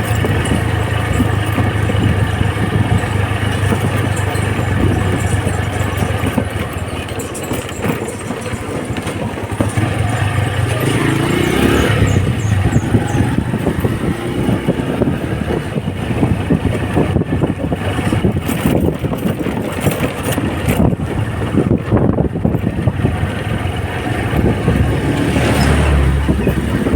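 Small Honda motorcycle engine running steadily while riding, with wind and road noise. The engine note drops back about six seconds in and picks up again a few seconds later.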